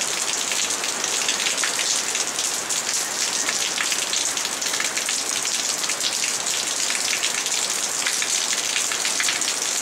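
Steady rain: a dense, even hiss strongest in the high range, dotted with many fine ticks of falling drops.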